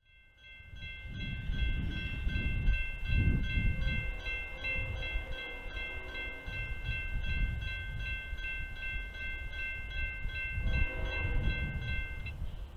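Railroad grade-crossing bell ringing in a rapid, even series of dings, stopping near the end, over a low rumble.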